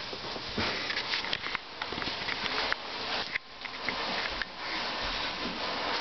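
Cardboard box being pushed and scraped along a hardwood floor: a steady scraping hiss with a few small knocks and taps.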